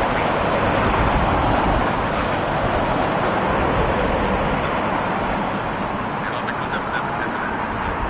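Steady jet rumble from the four Rolls-Royce Trent 970 turbofans of an Airbus A380 on final approach, with gusty storm wind buffeting the microphone.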